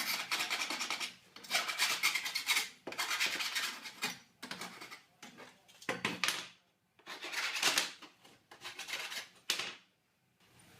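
A hand file rasping over the cut edges of steel cable tray, deburring the cuts, in several runs of quick strokes with short pauses between them. The filing stops shortly before the end.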